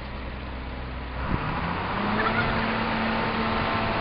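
Combine harvester running while unloading corn through its auger into a grain truck: a steady mechanical hum with level tones that gets louder about a second in.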